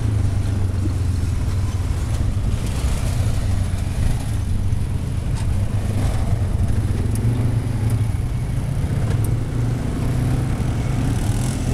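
ATV engines running steadily as quad bikes ride over a stony dirt track, heard from the seat of one of them as a loud, steady low drone.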